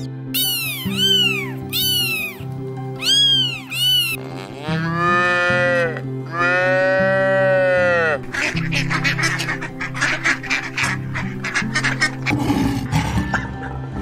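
A kitten meows four times, each call rising and falling in pitch. A cow then gives two long moos, followed by a rapid run of short, sharp calls and a brief rough, low sound near the end, all over steady background music.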